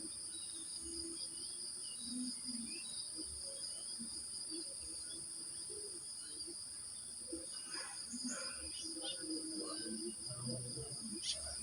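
Crickets chirping continuously in a steady high-pitched chorus, with scattered short bird chirps and calls, busiest near the end. Faint short low-pitched sounds come and go underneath.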